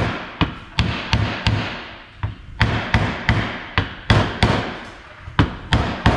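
Hammer tapping a new double-spring oil seal into its bore in a 241 DLD transfer case cover, about three light, sharp taps a second, working around the seal to drive it in evenly until flush.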